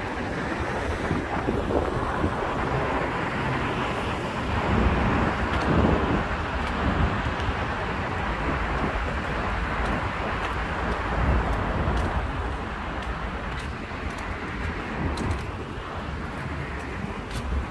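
Road traffic going by, with cars passing more loudly about five and twelve seconds in, and wind rumbling on the phone's microphone.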